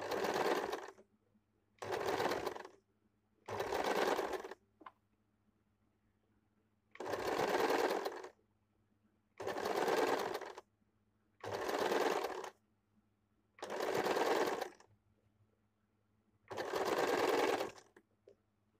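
Electric sewing machine stitching in eight short runs of about a second each, stopping and restarting between runs as the piping strip is guided along the blouse neckline.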